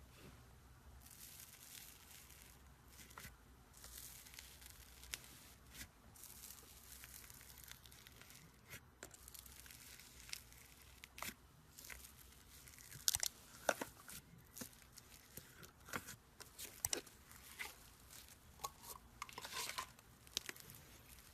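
Slime being squeezed and stretched by hand, giving irregular sharp clicks, pops and crackles, the loudest cluster a little past the middle.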